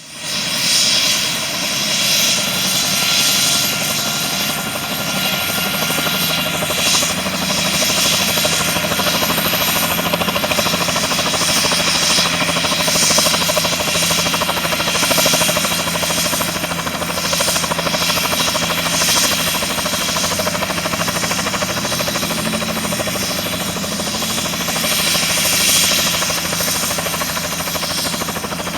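Air ambulance helicopter's turbine engine and rotor running loudly and steadily as it takes off, with a thin high whine that fades out about ten seconds in.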